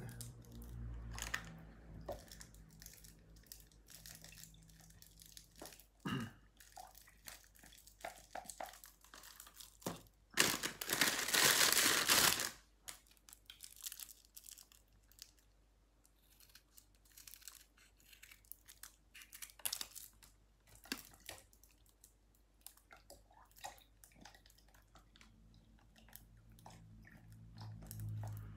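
Scissors snipping open small paper milk cartons, with the cartons rustling and crackling as they are handled and emptied into a plastic pitcher. About ten seconds in comes a louder rush of noise lasting about two seconds.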